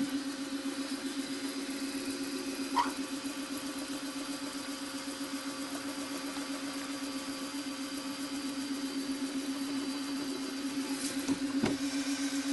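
Milling machine spindle running slowly, about 400 rpm, with a steady, slightly pulsing hum as a 5/16-inch reamer in a collet is fed into a drilled hole. A short click comes about three seconds in and a knock near the end.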